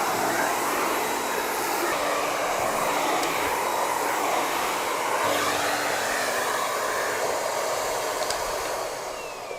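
Miele Complete C3 cylinder vacuum cleaner running with its Parquet brush on a parquet floor: a steady whooshing of motor and rushing air that fades near the end.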